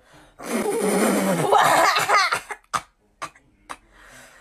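A person's loud wordless vocal outburst lasting about two seconds, its pitch wavering, followed by three short breathy bursts.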